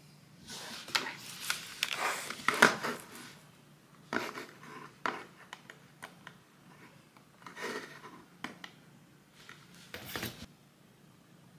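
A wireless mouse and a round-key keyboard being handled on a wooden desk: irregular clusters of clacks and rubbing, the busiest in the first few seconds, with a few key taps.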